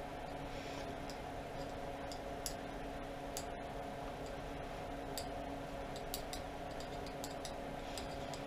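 Irregular small metallic ticks and clicks of a hex wrench being worked on cap-head screws at a lathe's cross slide, about one every second, over a steady hum.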